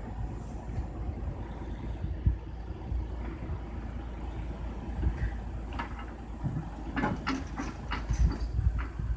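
Truck engine running steadily under a Fassi F210 loader crane, as it does to drive the crane's hydraulics. Several sharp knocks and metal clatters come in the second half.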